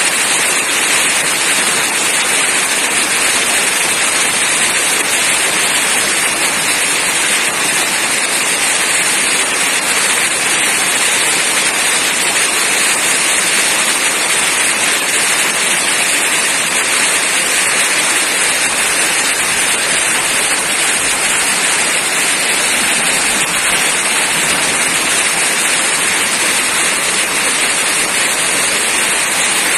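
Heavy rain falling steadily, a loud, even hiss without letup.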